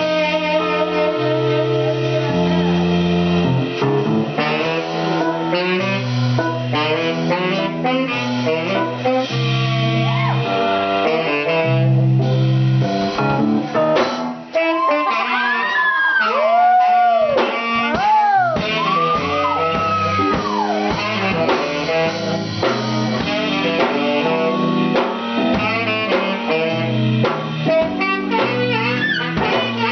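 Bluesy jazz instrumental music with a stepping low line under it; about halfway through, a lead line plays sliding, bending notes for several seconds.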